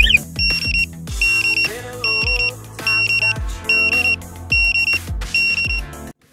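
Motorcycle alarm remote pager sounding its alert: about seven quick bursts of high chirping beeps, roughly one burst every 0.8 s, signalling that the bike's alarm sensor has been tripped. Background music with a steady beat plays underneath, and both cut off suddenly near the end.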